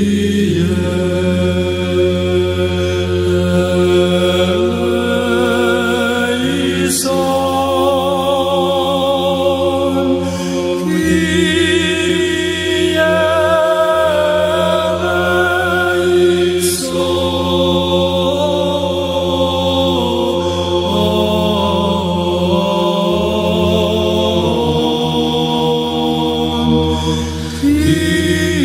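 Greek Orthodox Byzantine chant: voices sing a slow, ornamented, wavering melody over a steady, low held drone (the ison).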